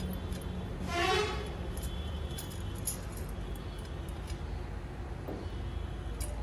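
Light metal clicks as the handle section of a steel motorcycle paddock stand is worked by hand, over a steady low hum. A short squealing tone, rising at first, comes about a second in.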